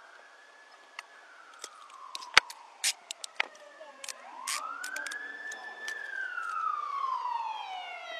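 Police siren on a slow wail, rising and falling in two long swells. Sharp clicks and knocks come in the first half, with one loud knock about two and a half seconds in.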